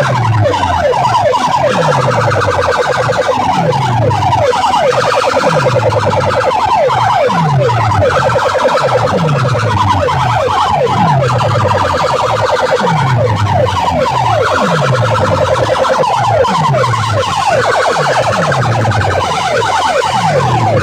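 Loud competition sound system blaring a siren-like effect: falling pitch sweeps repeating a little more often than once a second, with a deep falling tone under a buzzing higher band.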